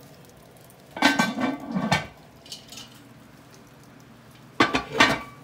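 Lodge cast-iron Dutch oven being pushed into a wood-fired brick oven, scraping over the oven floor. There is a loud scrape about a second in and a rattling metal clatter near the end.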